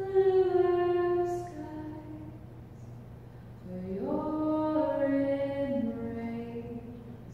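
Slow, chant-like singing: a voice holds one long note at the start, then about four seconds in slides up into a second long note that steps down near its end. A steady low hum runs underneath.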